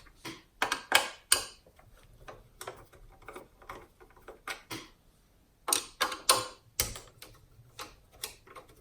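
Irregular sharp clicks and taps of a hand tool working the small 10 mm bolts that hold a car head unit's bracket, loudest in a group of clicks about six seconds in.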